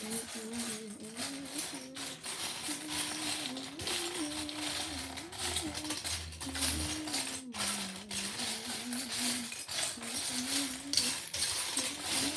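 Plastic Lego pieces clattering and clicking as they are sorted and handled. A faint wavering tune runs underneath.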